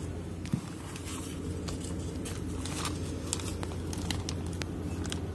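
Steady low machinery hum of an HVAC plant room, with scattered light clicks and taps and one sharper knock about half a second in as the perforated steel strainer basket from the chilled water line is handled.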